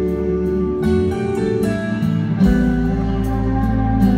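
Live country band playing an instrumental passage between sung lines, with guitars over a steady bass line.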